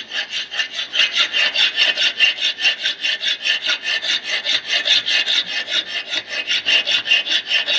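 Safe edge hand file rasping across a metal workpiece held in a bench vise, in quick, even back-and-forth strokes, several a second.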